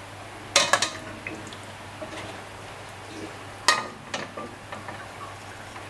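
Metal fork clinking against cookware as pieces of cooked lamb are lifted out of a pot and laid into a clay tagine: a quick cluster of sharp clinks about half a second in, one louder clink a little past halfway, then a few light taps.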